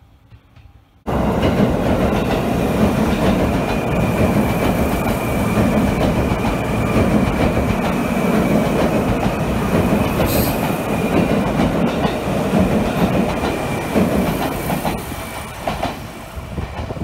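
Seibu Railway N2000-series electric train running along the platform, its wheels clattering on the rails under a steady high whine. The sound starts abruptly about a second in and eases slightly near the end.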